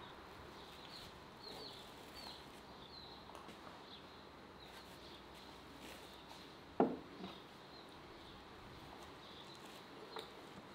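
Small birds chirping repeatedly in the background, with one sharp knock about seven seconds in as a clay cup is set down on a wooden table, and a lighter knock near the end.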